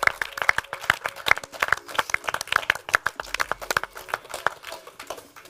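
A small group of people applauding, with separate hand claps easy to pick out, thinning out toward the end.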